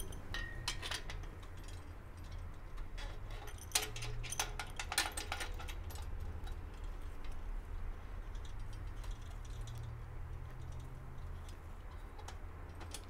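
Light metallic clinks and ticks of hand tools and bolt hardware being handled while assembling a steel folding workbench. The clinks come in a few loose clusters over a steady low hum.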